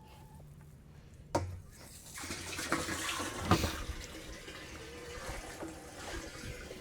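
Garden hose running water into a chicken waterer, splashing as it fills. A sharp knock comes about a second and a half in, and the flow of water builds from about two seconds in.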